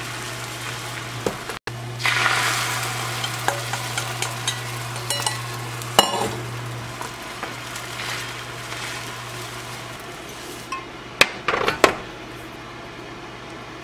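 Beaten egg sizzling in a rectangular tamagoyaki pan as a rolled dashimaki omelette cooks, with chopsticks working the egg. The sizzle is strongest in the first half and fades later, and a few sharp knocks come near the end as the omelette is moved out of the pan.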